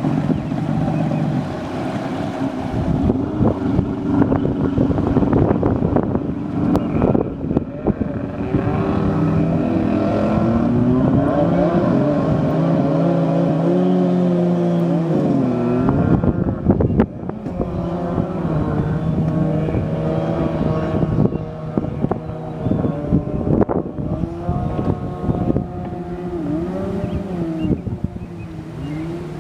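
Jet ski engine running and being revved, its pitch rising and falling again and again, with wind buffeting the microphone.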